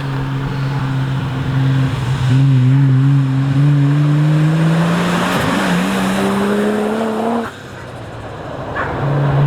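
Nissan GU Patrol's turbocharged RB straight-six engine pulling under acceleration. The revs climb steadily for about five seconds with a growing rush of air, then drop sharply as the throttle lifts, settling back to a steady run near the end.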